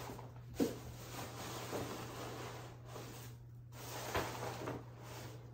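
Faint rustling and handling noise, with a soft knock about half a second in and another about four seconds in, over a steady low hum.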